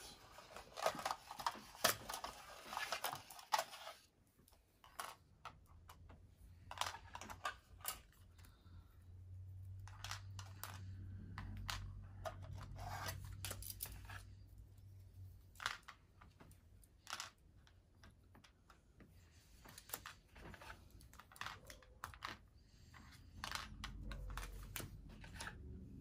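Board-game pieces being set down on the board and table: irregular light clicks and taps. A denser stretch of rustling handling comes in the first few seconds.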